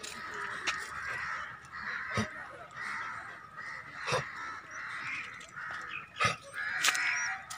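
A chorus of birds calling steadily, with several short thumps scattered through it.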